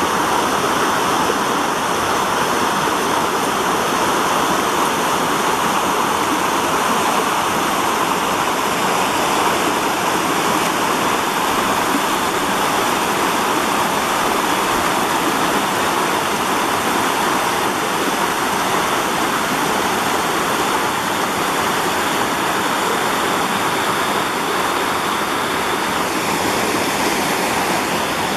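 Woodland brook rushing down over rock ledges in whitewater cascades: a steady, even rush of falling water.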